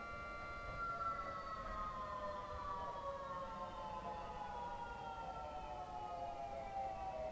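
3T22A civil defense siren sounding a steady chord of several tones. About a second in its pitch begins to slide slowly and evenly downward.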